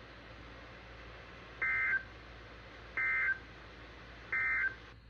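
Emergency Alert System end-of-message data tones: three short, identical bursts of warbling digital data about a second and a half apart over a steady background hiss, marking the end of the alert.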